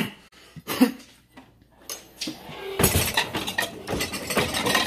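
Dishes and cutlery clinking and clattering: a couple of single knocks in the first second, then a busy run of clatter from a little under three seconds in.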